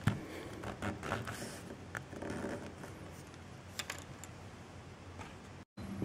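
Faint handling noise of fingers working a Cat5e cable, with light clicks and rustles as the cut plastic outer jacket is pulled off the twisted pairs.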